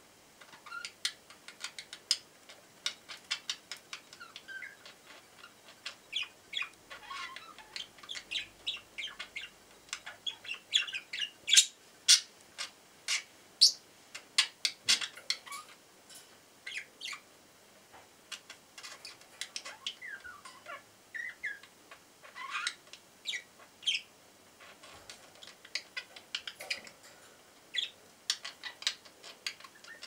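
Two budgerigars chattering in rapid short chirps, clicks and little rising and falling warbles, busiest and loudest in the middle with a short lull after. They are squabbling.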